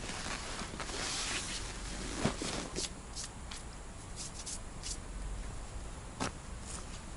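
Rustling and a few light knocks and clicks from a person moving about in grass and handling fishing gear.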